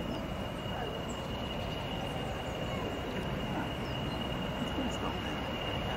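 BR Class 40 diesel-electric locomotive's English Electric 16-cylinder diesel engine running as the locomotive moves slowly into a station, a steady low rumble with a steady high-pitched whistle over it.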